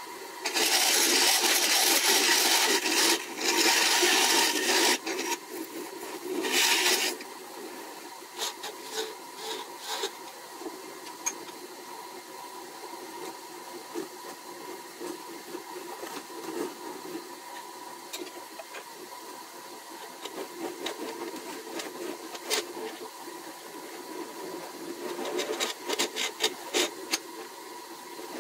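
Wood lathe spinning a small magnolia hollow form while a hollowing tool cuts inside it through the opening: a loud hissing cut for the first few seconds and again briefly about six seconds in, then lighter scraping with scattered clicks as the tool works the interior, over a faint steady motor hum.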